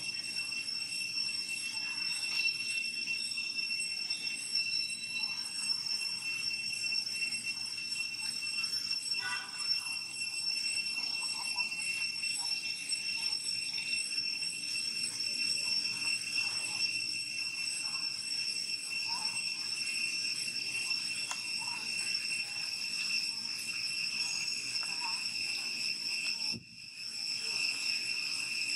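Steady, high-pitched drone of insects, one even tone that holds throughout and breaks off for a moment near the end.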